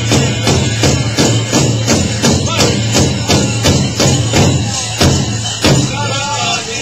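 Powwow drum beaten in a steady beat of about three strokes a second, with a couple of heavier strokes before the beat stops near the end. A voice starts up after the drumming stops.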